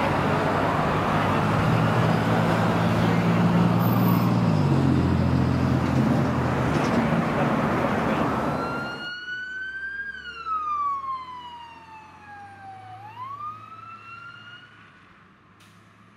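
Emergency vehicles pulling out in traffic: heavy diesel engines and road noise with a faint siren wail. About nine seconds in it cuts to a single fire truck siren wailing up and down, then swooping back up, growing fainter as the truck drives away.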